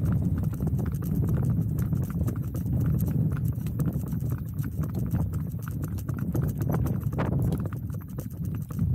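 Horse's hooves clip-clopping on a concrete lane, a steady run of irregular strikes over a continuous low rumble.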